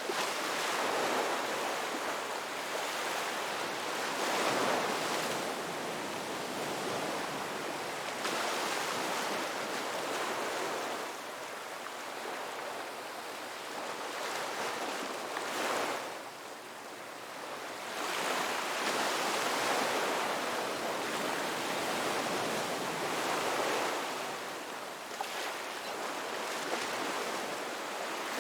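Ocean waves breaking on a beach: a steady wash of surf that swells and eases as successive waves come in, with a quieter lull near the middle.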